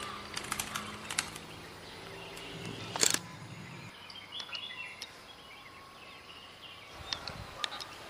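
Outdoor ambience with scattered sharp clicks, one loud snap about three seconds in, and a few faint short bird chirps.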